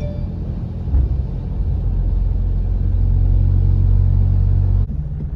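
Low rumble of a car being driven, with a short jolt about a second in. The rumble drops off abruptly near the end.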